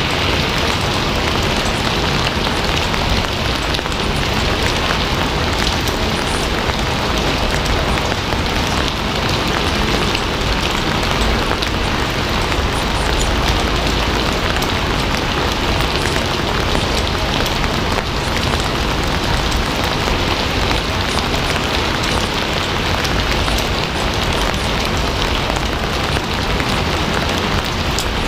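Steady, heavy rain falling on a surface, a constant dense hiss with scattered drop ticks.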